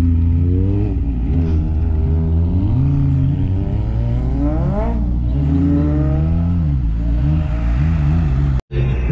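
Motorcycle engine under hard acceleration. The revs climb steadily for about five seconds and drop sharply at a gear change, then rise and fall several times. The sound cuts out abruptly near the end.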